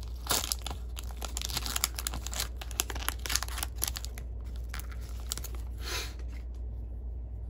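Foil trading-card pack wrapper being torn open and crinkled, a dense run of sharp crackles that thins out about six seconds in as the cards come free.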